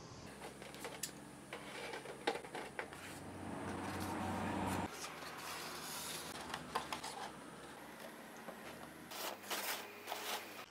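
A thin, shiny metal sheet rolled into a tube being slid over a plastic jug and set down on cardboard: rubbing and scraping, with scattered light clicks and taps.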